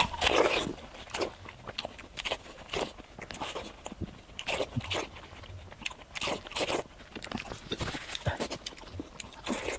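Biting into and chewing fresh watermelon close to the microphone: a loud juicy crunch right at the start, then a string of short wet bites and chews.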